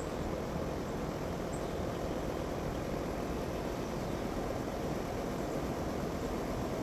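Steady low background rumble outdoors, with a couple of faint, brief high bird chirps.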